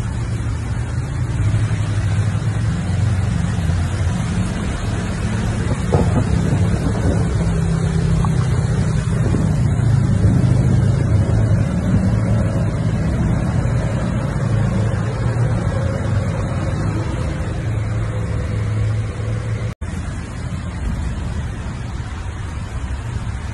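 Steady low rumble of a moving vehicle heard from inside the cabin: engine and road noise. It drops out for an instant about twenty seconds in.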